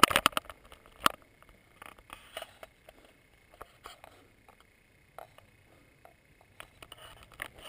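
Clicks and rustles of a handheld camera being handled as it is swung round, loudest at the very start and again about a second in, then scattered faint ticks.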